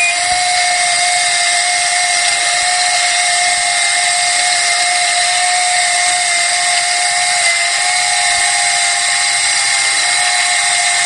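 The Micro-Sep fuel-test instrument's motorized syringe drive running with a steady whine and hiss as it pushes the fuel sample through the water-removing Alumacell. A short instrument beep sounds right at the start.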